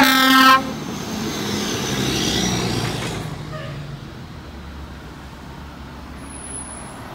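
Pierce fire engine gives one short horn blast, about half a second long. The truck then drives close past, its engine sound swelling and falling away over the next three seconds. A low, distant rumble follows.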